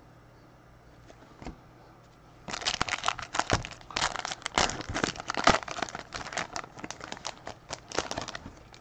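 Plastic wrapper of a baseball card pack being torn open and crinkled. It starts about two and a half seconds in as a dense run of irregular crackles and stops shortly before the end.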